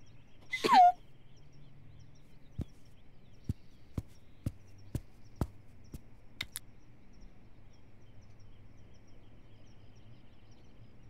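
A cartoon penguin coughing once, a short hoarse cough that falls in pitch. It is followed by a string of faint, unevenly spaced clicks.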